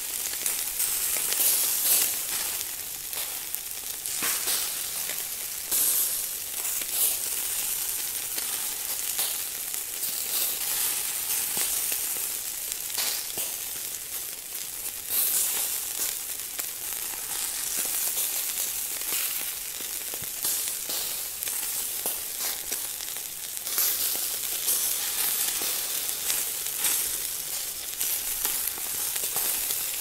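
Food frying in hot fat in a pan: a steady high sizzle, with frequent small crackles and pops throughout.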